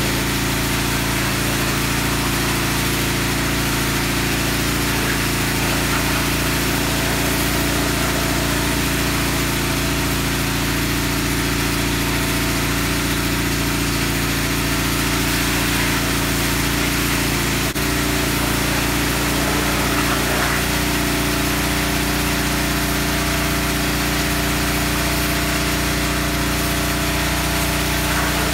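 Pressure washer engine running steadily under load, with the hiss of the water jet spraying into a car's engine bay. The engine's note dips briefly about two-thirds of the way through, then carries on.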